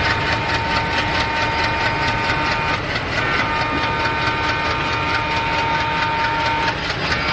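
WDG3A diesel locomotive's 16-cylinder ALCO turbocharged engine running as the locomotive approaches, a steady rapid engine clatter with a steady high whine over it.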